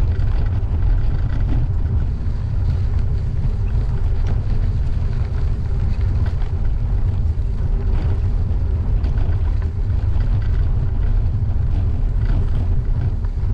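Steady rumble of riding a gravel bike on a packed gravel trail: wind buffeting the microphone over tyre noise on the gravel, with faint scattered ticks.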